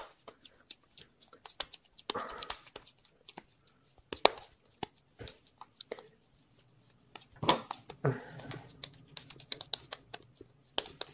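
Hands rubbing and patting a ball of wet clay to smooth its surface into an egg shape: soft, irregular taps and rubbing, with two longer rubbing passes about two seconds in and near eight seconds.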